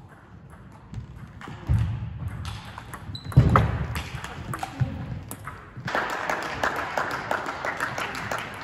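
Table tennis ball clicking off rubber bats and the table during a rally, with two heavy thuds about a second and a half apart early on and a quicker run of clicks in the second half.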